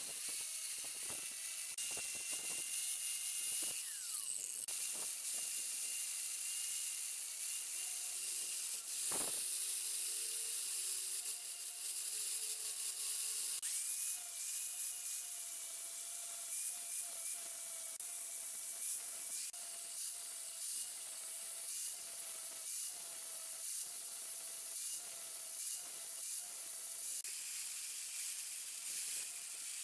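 A power grinding tool with an abrasive wheel working steel rail: a steady high hiss with a faint motor whine, its pitch shifting slightly at a few breaks.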